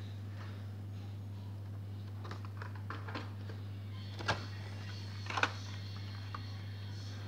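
A few light clicks and taps of Hot Wheels blister-pack cards being handled in a cardboard case, the sharpest two about four and five and a half seconds in, over a steady low hum.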